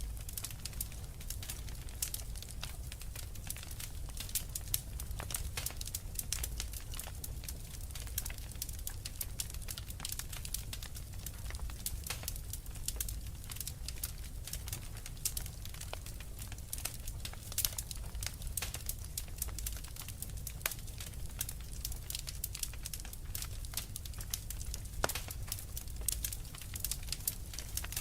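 Wood fire crackling: a steady stream of small irregular pops and snaps over a low rumble, with a few louder snaps standing out.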